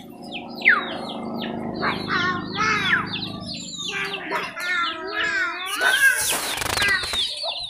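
Many small birds chirping and calling at once, a dense chorus of quick falling and warbling whistles. A short rush of noise cuts across it about six seconds in.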